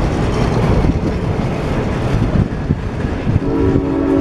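Passenger coaches rolling past at close range, their wheels rumbling and clattering on the rails. About three and a half seconds in, locomotive 113's Nathan M5 five-chime air horn begins to sound a steady chord.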